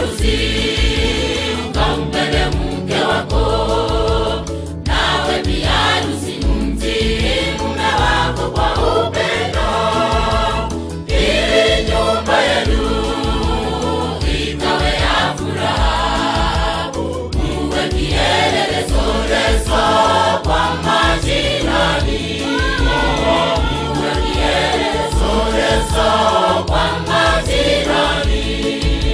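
Mixed choir singing a Swahili gospel song in harmony, over an accompaniment with a steady low bass beat.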